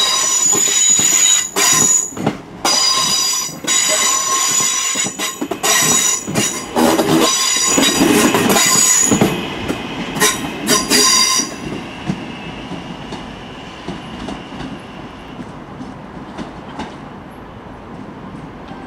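Northern passenger trains running over the lines at the platform end, their steel wheels squealing in high ringing tones with repeated sharp clicks over rail joints. It is loud for about the first eleven seconds, then a thinner squeal and the rumble fade as the Class 323 electric unit draws away.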